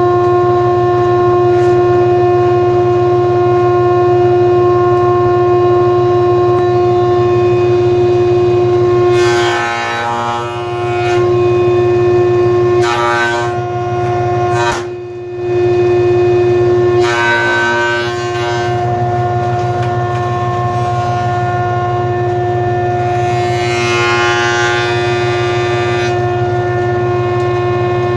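Jointer running with a steady whine, with four short bursts of cutting as a rough board is fed across the cutterhead. The knives take wood only where the board's high spots touch, so the cuts come in patches, with free-running gaps in between.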